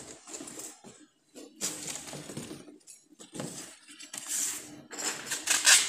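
Packaging being handled: foam sleeves on chair legs and cardboard flaps rustling and scraping in irregular bursts as the legs are lifted out of a shipping box. The loudest rustle comes near the end.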